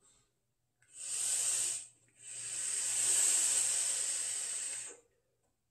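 A person taking a hit on a vape and blowing out the vapour: a short breathy hiss about a second in, then a longer one of nearly three seconds.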